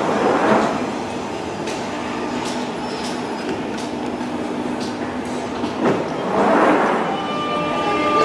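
London Underground tube train running along the platform past the camera, a steady rumble of wheels and motors. The noise swells twice, about half a second in and again near six and a half seconds, with a few sharp clicks from the wheels in between.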